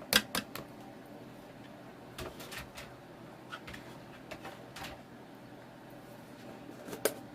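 Light kitchen clatter as chopped vegetables are tipped into a bowl of pasta: a sharp knock just after the start, scattered soft clicks and taps, and another knock near the end.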